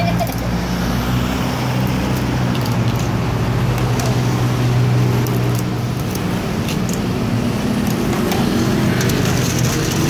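A motor vehicle's engine runs nearby in a steady low hum that swells through the middle and eases off, while short sharp clicks and taps come from kitchen scissors snipping blue crab and a spoon working in a steel mixing bowl.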